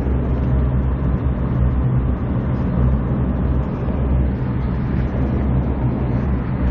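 Steady cabin drone of a Bombardier Q400 turboprop on the ground with only one engine running after an engine failure, a low hum under an even rushing noise.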